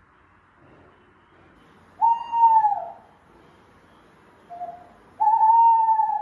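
Owl hooting, played back through a speaker: two long hoots about three seconds apart, with a short softer note between them.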